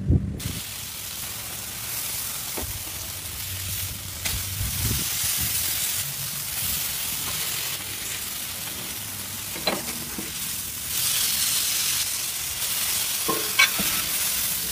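Steak sizzling on a hot flat-top griddle under a cast-iron grill press: a steady sizzle that grows louder about two-thirds of the way through, with a few sharp metal clinks.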